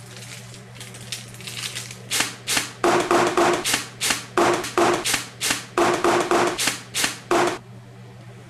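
Rhythmic tapping and knocking on items inside an open refrigerator, about three hits a second, some with a short ringing note. The beat starts about two seconds in and stops shortly before the end, over a steady low hum.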